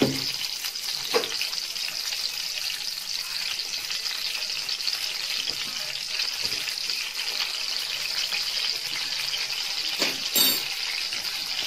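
Oil sizzling steadily around whole tomatoes frying in a steel kadai, with a metal spoon knocking against the pan about a second in and more loudly near the end.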